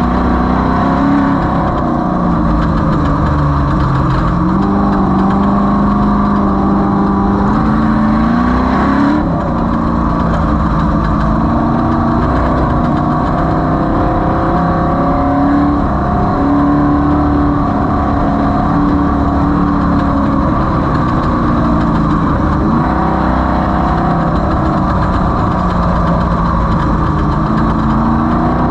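Off-road race vehicle's engine running hard, its pitch rising and falling again and again with the throttle, with a sharp climb and sudden drop about nine seconds in, over a steady rush of noise.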